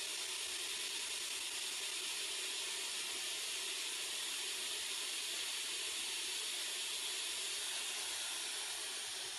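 Steady static hiss from a ghost-box app played through a small Bluetooth speaker, unbroken and unchanging in level.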